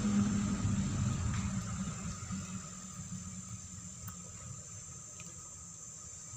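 Steady high-pitched chirring of insects, such as crickets, in an oil palm plantation. A low rumble is loudest at the start and fades away over the first two or three seconds.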